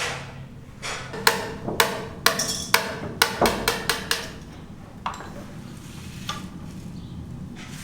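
A quick, irregular run of about ten sharp knocks, some with a short ring, between about one and four seconds in, then a few fainter knocks.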